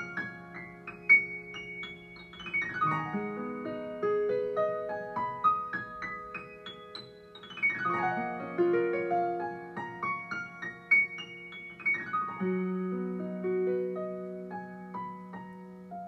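Improvised solo piano music: a flowing stream of notes over low held bass notes, broken by fast runs across the keyboard about three seconds in, near the middle and about twelve seconds in.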